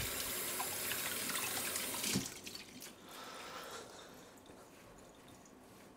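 Water running from a kitchen tap for about two seconds, then cutting off sharply, followed by a quieter flow of water that trails off.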